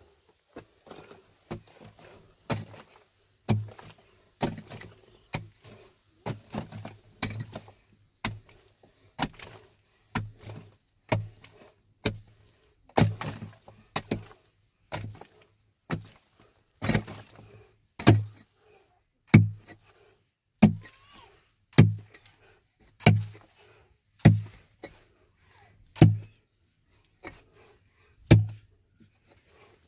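Repeated heavy thuds, someone striking something over and over. Irregular and lighter at first, then about one hard blow a second, louder, in the second half.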